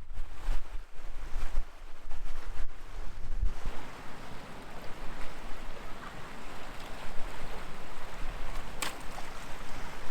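Strong gusty wind buffeting the microphone, a continuous rushing with uneven low rumbling surges.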